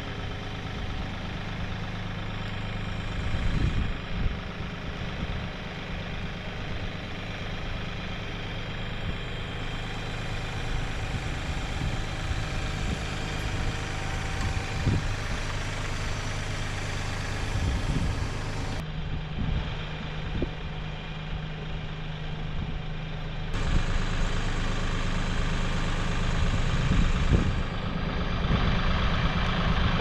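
Compact tractor's diesel engine running steadily at low revs while its front loader lifts and carries the sawmill track, with a few short knocks now and then.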